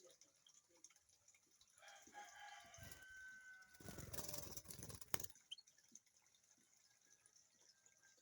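A rooster crowing faintly in the background, one drawn-out call of a second or two, followed about four seconds in by a louder rush of noise that ends in a sharp click.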